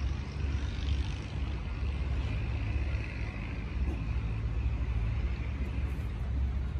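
An engine running steadily, a low hum with no change in pitch.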